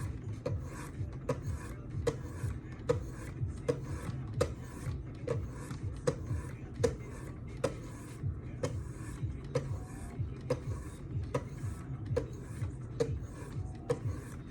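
Fine-grit sharpening stones on a Wicked Edge guided sharpening system stroking along a folding knife's edge, an even rhythm of scraping strokes about two to three a second, each with a light click.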